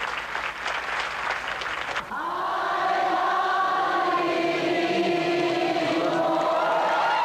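Crowd applause for about two seconds. It cuts to a woman and a man singing a slow song together into one microphone, with long held notes.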